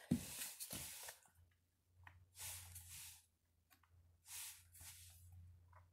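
Playing cards being dealt out and laid on a wooden shelf: four soft swishes about a second apart, over a faint low hum.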